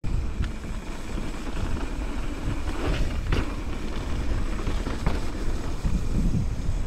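Mountain bike rolling fast down a gravel flow trail: wind rumbling over the camera microphone, with the tyres crunching on loose stones and the bike rattling, and a couple of sharper knocks about three seconds in.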